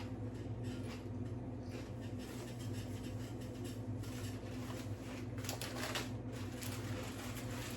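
Close-miked eating sounds: chewing with small moist clicks and rustles, over a steady low electrical hum.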